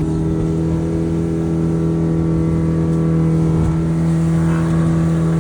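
Fishing boat's engine running steadily under way, a constant even drone.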